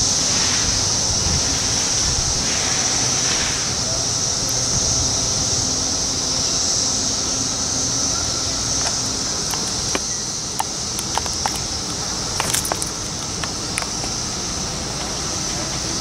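Chorus of periodical cicadas buzzing, a steady high-pitched drone, with a few sharp clicks in the second half.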